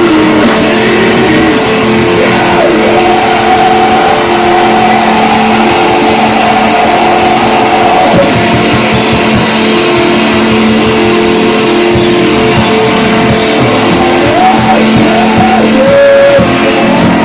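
Rock band playing loud, with electric guitars holding long notes and chords over drums.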